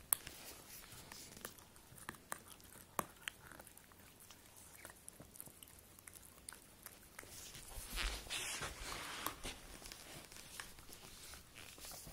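A Jack Russell–pug cross chewing and biting at a hard rubber Kong bone toy, teeth clicking and gnawing on the rubber as she works at treats wedged inside it. The sound is louder and busier about eight seconds in.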